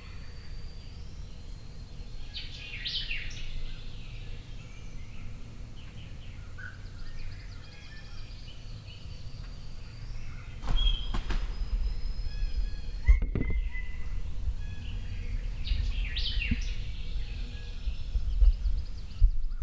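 Wild songbirds singing: the same short bright phrase about three seconds in and again near the end, with thin high calls between. A low rumble comes in about halfway through.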